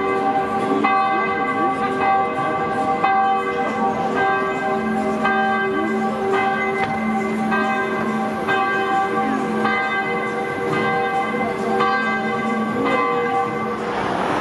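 Church bells ringing, several bells struck in turn about once a second with their tones overlapping, until the ringing cuts off near the end.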